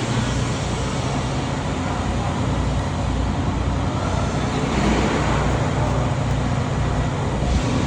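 Scania truck's diesel engine running at low speed through its exhaust, a steady low drone that grows a little louder about five seconds in.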